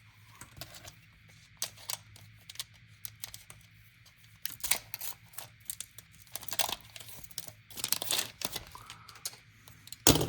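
Pokémon card booster pack's foil wrapper being torn open and crinkled in irregular rustling bursts, with a short sharp crackle near the end.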